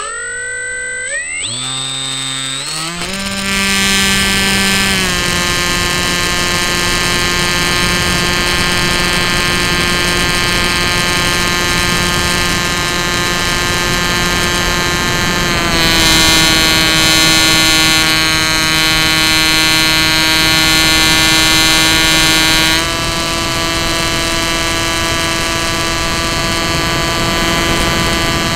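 Electric motor and propeller of a Bixler 2 RC plane, heard through the camera on the airframe. The motor's whine rises in a few quick steps as the throttle opens for take-off, then holds a steady pitch in flight. Between about 16 and 23 seconds in it runs slightly lower and louder, then settles back.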